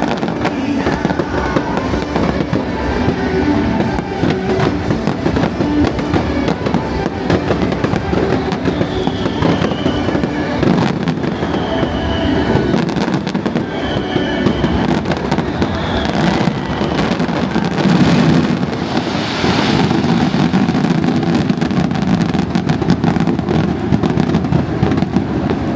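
Aerial fireworks display going off without a break: rapid bangs and crackling from many shells, with a few short falling whistles in the middle. Music plays underneath.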